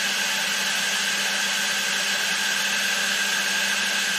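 Milling machine running idle with no cutting: a steady motor hum with a higher steady tone above it over an even hiss.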